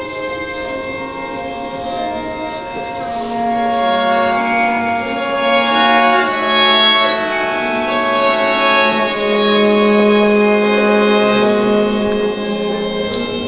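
String quartet of violins and cello bowing long sustained notes that overlap into a slowly shifting chord. A low held note comes in about three seconds in, and the texture swells louder through the second half.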